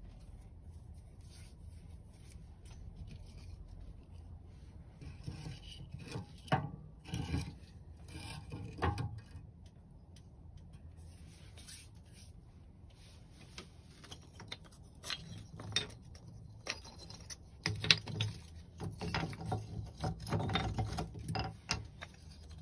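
Rubbing, scraping and rustling with light knocks as materials are handled, in two spells: one about a quarter of the way in and a longer, busier one in the second half.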